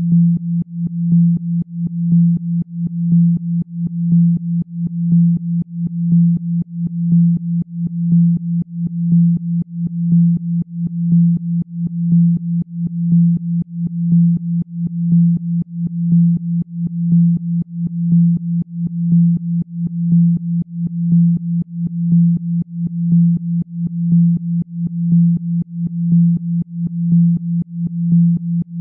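Electronically generated low pure tone, a Rife 'healing frequency' offered for spinal regeneration. It holds one steady pitch and swells and fades in regular pulses, roughly one a second.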